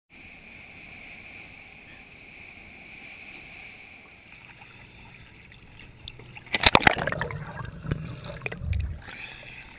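Dive boat under way: a steady rush of wake and water along the hull for about six seconds. Then a loud splash as a scuba diver plunges in, followed by muffled underwater bubbling and churning that fades out near the end.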